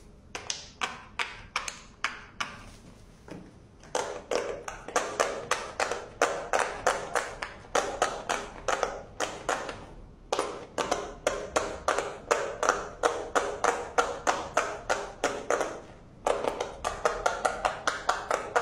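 Silicone pop-it fidget toys having their bubbles pressed by fingers in quick succession: a fast, steady run of pops, about five a second, each with a short hollow ring, broken by a few brief pauses.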